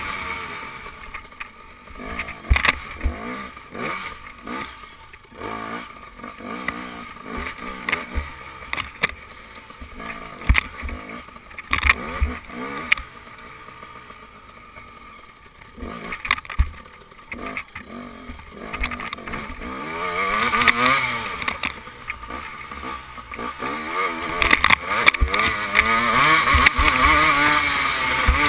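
KTM dirt bike engine being ridden hard, its pitch rising and falling as the throttle opens and closes, with frequent sharp knocks. It is quieter through the middle and revs loudest near the end.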